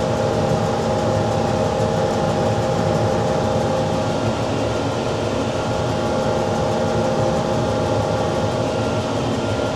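Case IH Farmall 110C tractor running steadily while it pulls and drives a New Holland BR7060 round baler through windrowed hay, a continuous engine and driveline drone with a steady whine.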